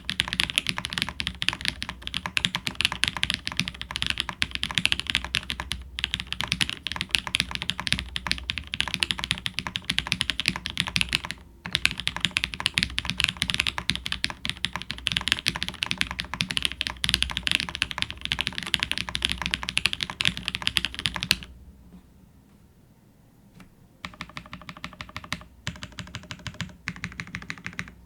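TX65 custom mechanical keyboard with a polycarbonate case and full aluminium plate, fitted with 205g0-lubed Jwick linear switches on Kailh red stems and GMK keycaps, typed on fast and continuously. There is a brief break about halfway. Near the end the typing stops for a couple of seconds, then resumes with slower, separate keystrokes.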